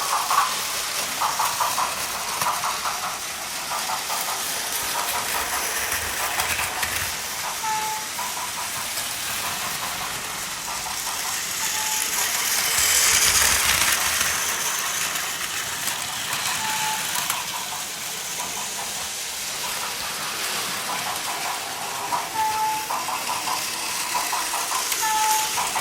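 Battery-powered Plarail toy trains running on plastic track: a steady whir of small motors and the rattle of wheels, louder about halfway through as one passes close. A short high beep sounds now and then.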